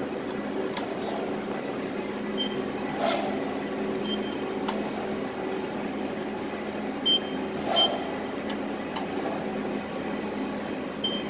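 Amada HDS-1303NT CNC hydraulic press brake with its hydraulic pump running, a steady hum. A short burst of noise comes about three seconds in and again about eight seconds in, with a few faint short high beeps between them.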